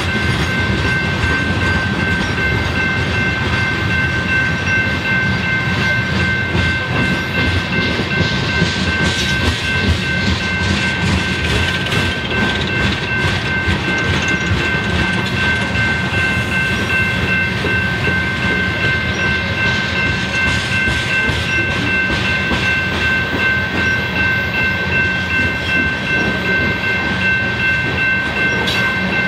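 BNSF freight train's cars rolling steadily past at a grade crossing, a continuous rumble with wheels clattering over the rails. A steady high ringing tone sounds above it throughout.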